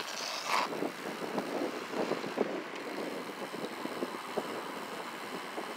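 Riding noise from an electric mountain bike pulling away from a stop: wind on the microphone and tyre and road noise, with irregular light rattles and knocks from the bike as it picks up speed.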